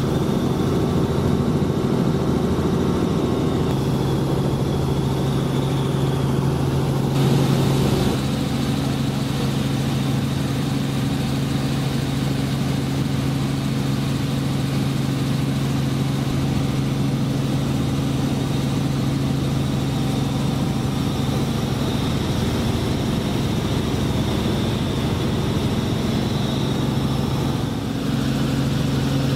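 Helicopter engine and rotor heard from inside the cabin: a steady drone with a low hum. Its tone shifts slightly about eight seconds in.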